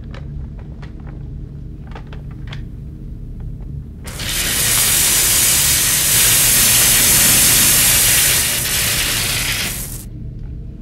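A hand-held cutting tool fires at a stone obelisk, a loud, steady, spraying hiss with sparks that starts suddenly about four seconds in and fades away about six seconds later. Before it there is a low steady rumble with a few faint clicks.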